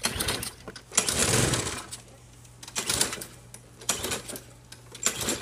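Briggs & Stratton lawn mower engine being cranked by its recoil pull cord: five hard pulls about a second apart, each a short rattling whirr of the engine turning over. It does not catch and run, even with starter fluid.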